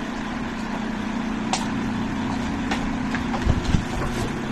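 A steady low hum in the background, with a few light clicks and a couple of low knocks just after the middle as the plastic toy tank and its packaging are handled.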